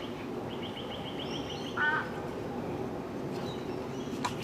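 Bird calls: a rapid trill of repeated high chirps, about ten a second, for over a second, then a short call about two seconds in and a few faint chirps near the end, over a steady outdoor background.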